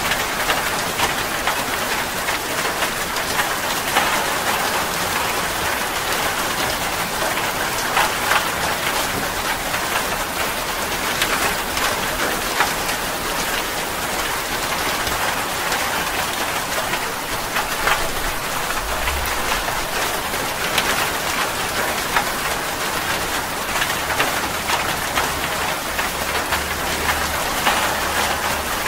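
Steady heavy rain falling on leaves and ground: a dense hiss full of fine drop taps. A low rumble joins in about two-thirds of the way through and runs on to the end.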